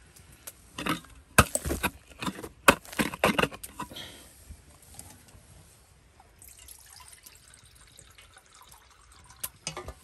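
A string of sharp clicks and knocks, then from about six seconds in a steady hiss of running water.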